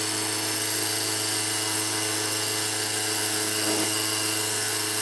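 Antique Bosch espresso machine running as it brews, a steady electric hum with a constant hiss while coffee streams from its two spouts into a cup.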